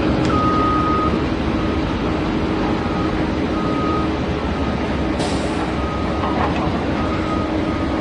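Bulldozer's diesel engine running steadily, with a reversing alarm beeping about once a second. A short hiss comes about five seconds in.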